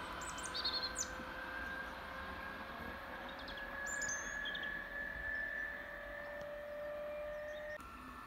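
Faint, steady whine of a distant S-Bahn electric train, creeping slightly up in pitch, with a few short bird chirps about a second in and again around four seconds in. The whine cuts off near the end.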